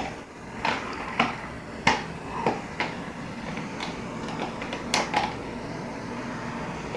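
A butter dish clinking and knocking as a dog noses into it in a baby's hands: about eight light, irregular taps in the first five seconds, then only faint room noise.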